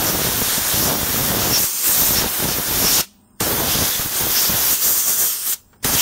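Compressed air from an air-compressor blow gun hissing into a laptop's exhaust vent, blowing dust out of the cooling fan. It comes in three blasts: a long one of about three seconds, a gap, another of about two seconds, then a short burst at the end.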